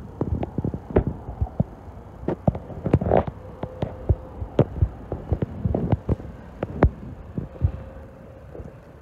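Suburban electric train wheels clattering over rail joints and points in a quick, irregular run of knocks and clacks, with a faint steady whine underneath from about three seconds in.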